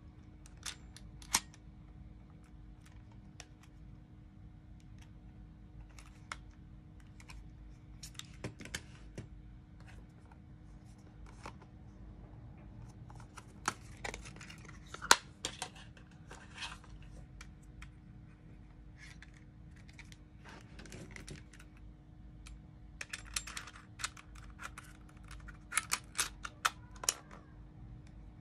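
Scattered small clicks and plastic rattles from hands handling a Sony WMT-DT1 DAT Walkman and a DAT cassette in its clear plastic case: the case opening, the tape going in, and the player's cassette door closing. The clicks come in two busier clusters, one in the middle and one near the end.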